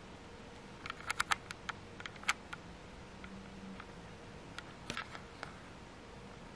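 Quiet room tone with a faint steady hum, broken by light sharp clicks and taps: a quick cluster of them about a second in, one more near two and a half seconds, and a few more around five seconds.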